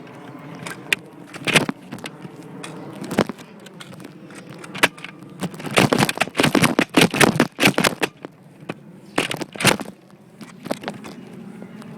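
Sharp clicks and snaps from Nerf dart blasters being primed and fired. They come scattered at first, then in a rapid cluster a little past halfway, with a few more near the end.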